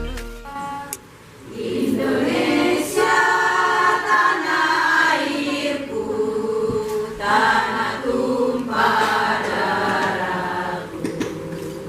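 Choir singing long held chords in phrases of about two to three seconds, with short breaks between them.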